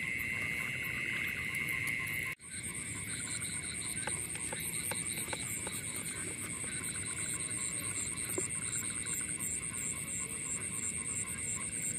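Frogs calling in a dense, steady night chorus over flooded shallows after heavy rain. About two seconds in the sound drops out briefly, and a high, evenly pulsing trill then dominates. A few faint small splashes and clicks come as hands feel through the water.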